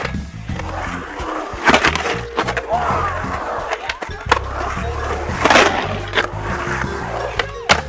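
Skateboard wheels rolling on the concrete of a bowl, with several sharp knocks as the trucks and board hit the coping at the lip, over background music.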